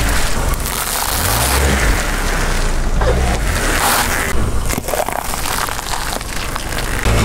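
Car tyre rolling slowly over items on asphalt and crushing them: irregular crackling and crunching over the low rumble of the car.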